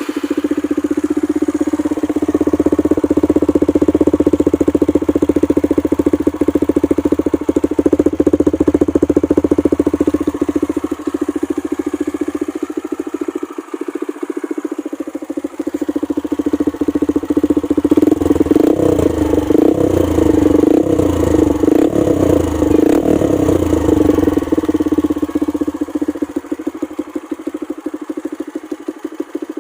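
Kawasaki KLX150L's bored-up single-cylinder four-stroke engine running through a Norifumi Rocket 4 aftermarket exhaust pipe, idling steadily. A little past halfway the throttle is blipped repeatedly for several seconds before it settles back.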